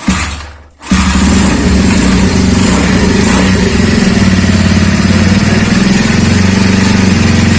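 Honda GL motorcycle's single-cylinder four-stroke engine, freshly built up to 200cc, starting about a second in and then running steadily.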